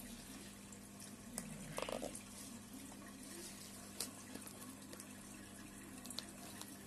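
Thin plastic lid being prised off a tub by hand: a few light clicks and a short crackle about two seconds in, over a faint steady hum.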